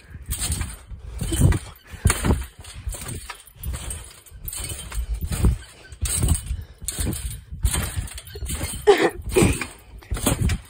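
Repeated bouncing on a trampoline: a run of thuds from the mat, a bit more than one a second, mixed with rustle and knocks from the phone being handled mid-jump.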